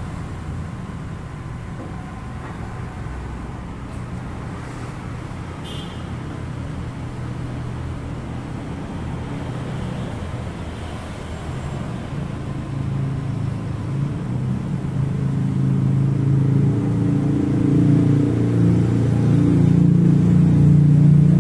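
Low rumble of a motor vehicle engine running, steady at first and growing louder over the last several seconds.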